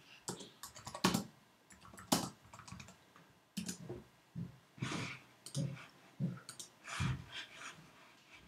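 Typing on a computer keyboard: irregular, separate keystrokes with a few clicks.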